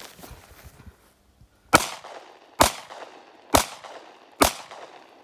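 Four handgun shots fired in a steady string, a little under a second apart, each with a short ringing tail.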